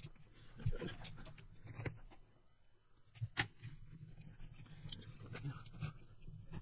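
Hands fitting wires into a plastic radio-controlled car chassis: scattered light clicks and taps of plastic and wire, about five, the sharpest a little past the middle, over a low steady hum.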